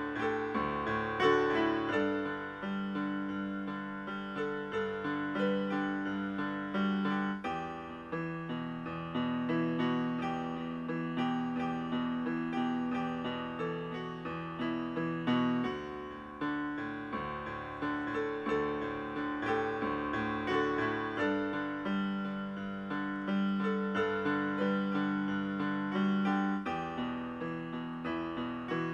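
Solo piano music playing chords under a melody.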